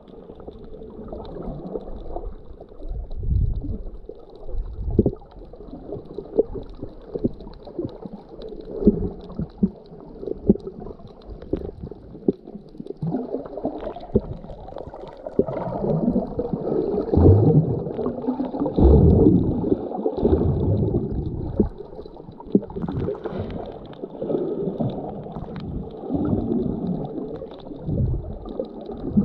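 Muffled underwater churning and gurgling of moving water around a submerged camera, with uneven low surges and thumps that grow louder about halfway through.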